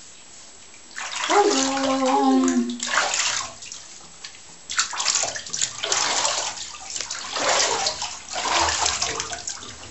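Bathwater sloshing and splashing in a tub in repeated surges as hands scoop and rub water over a puppy's coat. A brief voiced sound comes about a second in.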